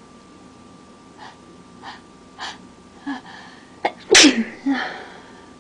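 A person's allergy sneeze. Four short breaths, about half a second apart and growing louder, build up to one loud sneeze about four seconds in, followed by a shorter second burst.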